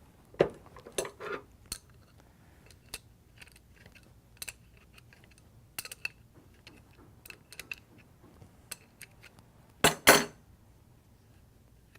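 Metal parts of an airless spray gun clicking and clinking as its rear cap assembly is taken off, in scattered light clicks, with louder knocks in the first second or so and a loud double knock about ten seconds in.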